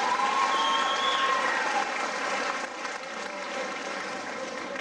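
Audience applauding, loudest at first and dying down toward the end.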